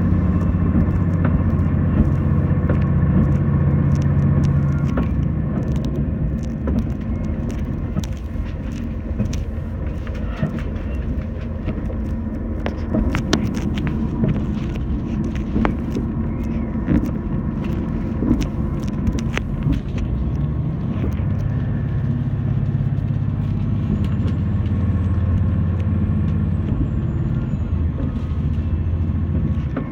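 Diesel railcar running, heard inside the car: a steady low engine drone with many wheel-on-rail clicks and knocks. The drone eases off about five seconds in and builds again after about twenty seconds.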